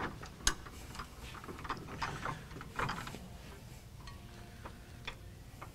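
Handling noise of track bar parts at a bench vise: scattered light clicks and knocks as a metal sleeve is fitted into a polyurethane bushing in the bar's end, with a sharp knock about half a second in and a stretch of rubbing and handling around two to three seconds in.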